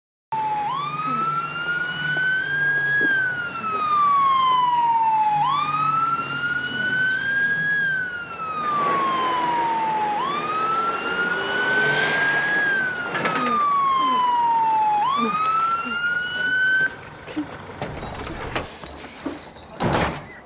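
Ambulance siren wailing, its pitch rising and falling slowly in cycles of about five seconds, four times, then cutting off; a short knock follows near the end.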